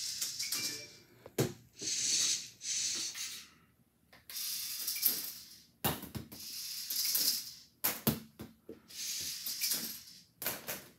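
Fling, a small VEX IQ competition robot, driving in short bursts: a hissing whir from its motors and wheels, with several sharp knocks in between.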